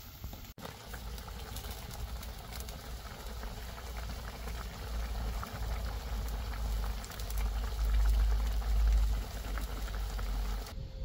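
Broth boiling hard in a steel wok over an open wood fire: a steady bubbling full of small pops, under a low rumble that swells near the end.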